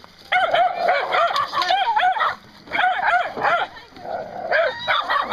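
Small dog barking and yapping in quick runs of short, high calls, three bursts with brief gaps.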